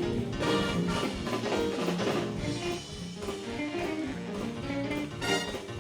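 Live band playing an upbeat jazzy instrumental passage, guitar over a drum kit.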